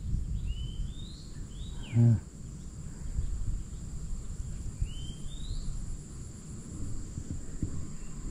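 Rural plantation ambience: insects shrilling steadily at a high pitch while a bird gives a few short rising chirps, twice in small groups. About two seconds in, a brief, loud, low hum-like sound cuts through.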